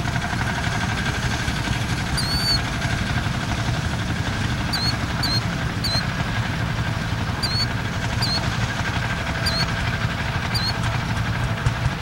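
Single-cylinder diesel tractor engines running steadily. A small bird chirps: one call about two seconds in, then short calls repeated from about five seconds on.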